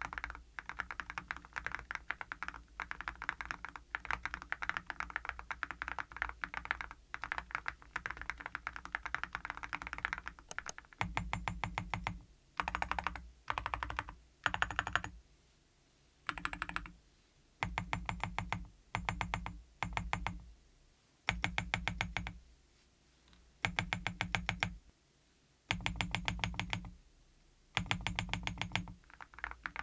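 Mechanical keyboard (EVO80) fitted with full-metal keycaps being typed on steadily with dense, continuous clicking. About ten seconds in, the sound changes to short runs of rapid repeated presses on the stabilized keys, each run about a second long with pauses between and a heavier, lower sound: a stabilizer sound test.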